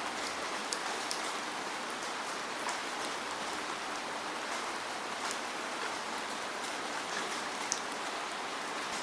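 Steady falling rain, an even hiss with scattered sharp drop ticks striking a surface.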